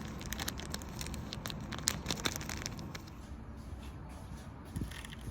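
A seasoning packet crinkling and crackling as it is handled and squeezed out, busiest in the first three seconds, with a soft thump near the end.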